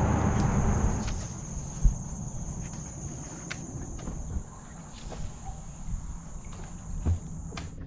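Wind noise on the microphone dies away in the first second. It leaves light clicks and a few dull knocks on a bass boat's deck over a steady high-pitched whine, which cuts off just before the end.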